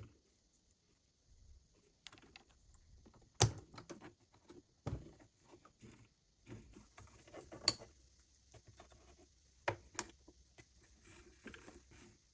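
Scattered light clicks and taps of small things being handled, with a few louder knocks, the loudest about three and a half seconds in.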